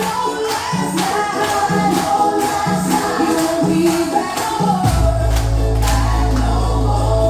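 Dance music with singing over a steady beat; about five seconds in the beat stops and a low chord is held, the song drawing to its close.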